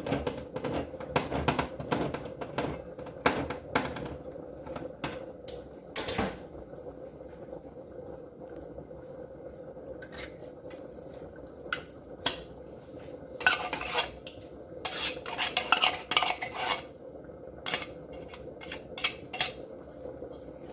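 A metal spoon clinking and scraping against a can and a bowl, knocking condensed mushroom soup out of the can, with scattered sharp knocks and a busier run of scraping about two-thirds of the way through. A faint steady hum sits underneath.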